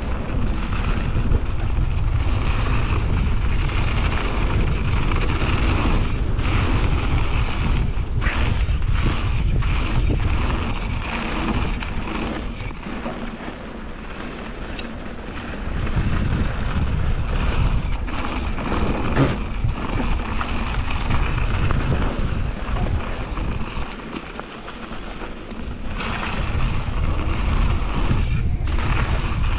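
Wind buffeting a GoPro action camera's microphone during a fast mountain-bike descent on a dirt trail, mixed with tyre noise and scattered knocks and rattles from the bike over bumps. The rush eases twice for a second or two, around the middle and again later.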